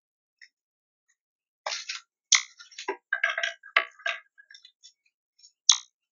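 Irregular clicks, taps and crunches of a feeding animal picking and cracking seed on a bird feeder, close to the microphone.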